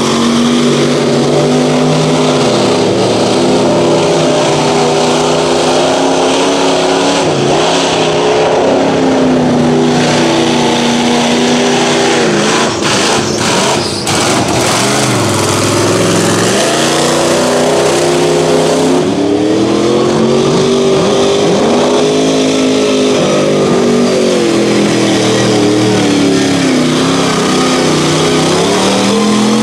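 Lifted Chevrolet Silverado mud truck on tractor tires running hard through a mud pit. Its engine revs rise and fall in long swells over the noise of churning mud, with a brief drop in level about halfway through.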